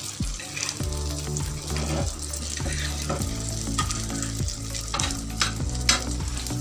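Egg-coated shami kebabs sizzling in hot oil in a wok, with a metal spoon and tongs clicking and scraping against the pan as the kebabs are turned over.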